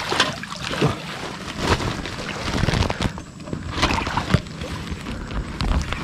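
Rustling and brushing of tall grass and a yellow plastic sheet rubbing against the microphone as someone walks through the grass, with irregular scuffs and knocks of handling.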